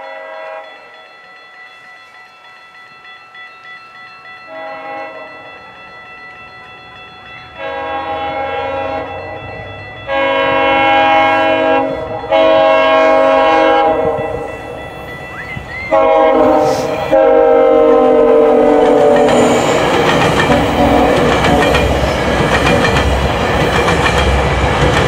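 GO Transit commuter train sounding its multi-chime horn in a series of long blasts, growing louder as it approaches, with the pitch falling on the last blast. Then the loud rumble and rail clatter of the locomotive and bilevel coaches passing close by.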